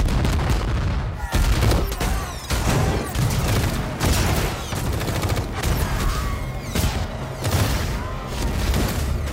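Action-film battle sound effects: a rapid, dense barrage of explosions and gunfire, blast after blast over a deep, continuous rumble.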